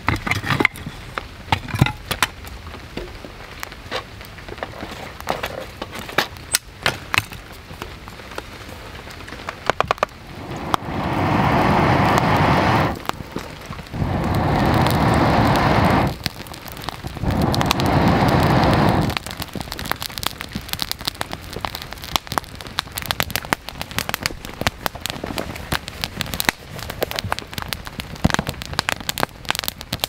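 Wood campfire crackling and popping under steady rain. About ten seconds in come three long rushes of air, each about two seconds, as the embers are blown through a fire-blowing pipe and flare up into flame.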